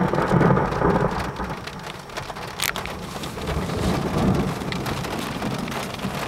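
Thunder rumbling after a lightning strike, heard from inside a car over heavy rain pouring on the roof and windshield. The thunder is loudest in the first second or so, fades, and swells again about four seconds in.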